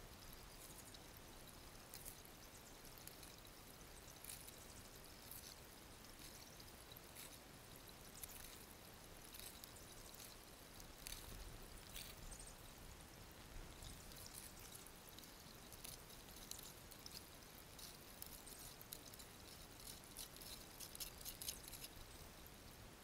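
Faint stream water trickling over a gold sluice, with small scattered splashes and drips as concentrate is spooned and rinsed into the water.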